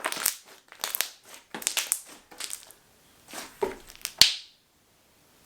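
Slime being stretched and worked by hand: a string of short squishy bursts, then one sharp pop just after four seconds in.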